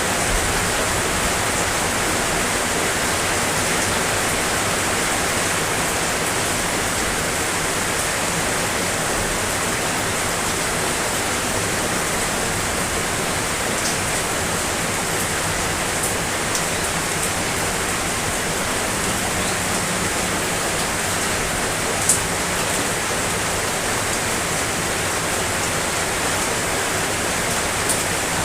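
Steady, dense rain hiss with no let-up, broken by a few sharp drip clicks, the loudest about two-thirds of the way through.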